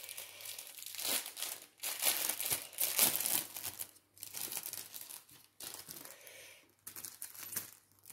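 Packaging of a small cross-stitch tool kit being handled and opened: irregular crinkling and rustling, with some tearing, heaviest in the first few seconds and pausing briefly now and then.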